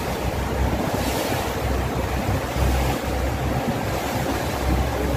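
Wind buffeting the microphone: a steady rushing noise with uneven low thumps and surges.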